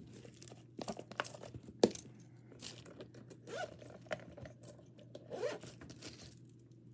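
Small objects being handled, with rustling and scattered light clicks. The sharpest click comes just under two seconds in, and the handling goes quiet near the end.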